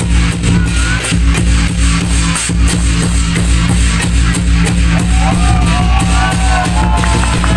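Loud music with a fast, steady drum beat; a wavering melody line comes in about five seconds in.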